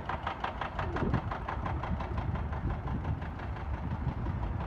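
An engine idling with a steady knocking pulse, about six beats a second, over a low rumble.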